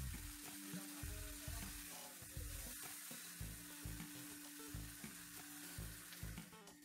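Pre-cooked chicken pieces sizzling in oil in a frying pan as they brown, a steady crackling hiss. Dull low bumps come now and then as the pieces are turned with tongs.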